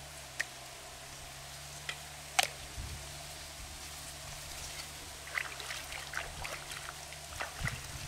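A few sharp clicks of a knife and freshwater mussel shells knocking together, the loudest about two and a half seconds in. Over the last few seconds come small splashes and trickles as hands work in shallow water.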